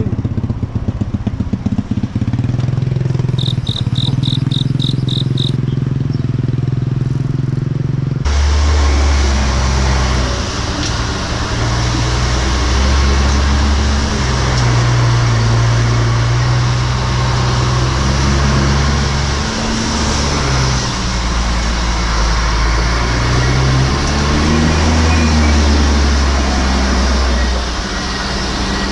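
A motor vehicle's engine running on the move, with a short run of rapid high beeps about three seconds in. From about eight seconds a loud, steady rush of wind and road noise comes in suddenly over the engine's low rumble.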